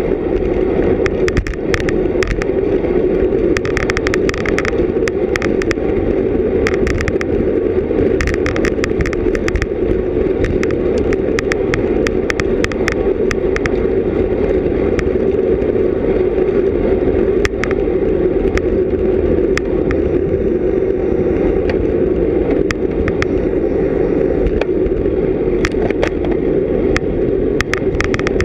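Steady rush of wind and road noise from a racing bicycle at speed, heard on a helmet- or bike-mounted action camera, with scattered sharp clicks and ticks, some coming in short clusters.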